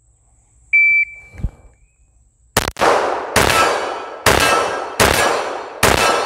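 A shot timer's short high beep, then five .45 ACP pistol shots from a Glock 21, a little under a second apart. Each shot rings away slowly, and the string takes about five seconds from beep to last shot.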